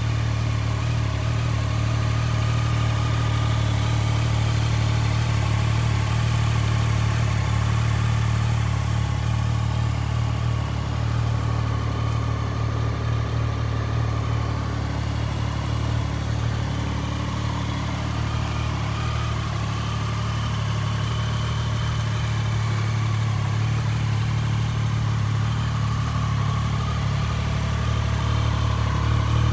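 2017 Triumph Daytona 675's three-cylinder engine idling steadily through an aftermarket Arrow exhaust.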